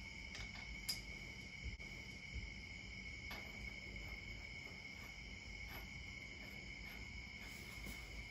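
Crickets chirping in a steady, continuous trill, with a few faint clicks from hand work at the wheel hub.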